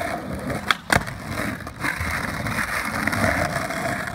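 Skateboard wheels rolling over rough asphalt with a steady gritty noise, with two sharp clacks of the board about a second in.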